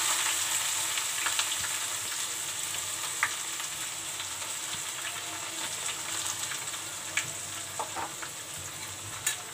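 Freshly added chopped onion sizzling in hot mustard oil in a kadhai. The hiss fades slowly as the onion cools the oil, and a few sharp crackles of spattering oil stand out.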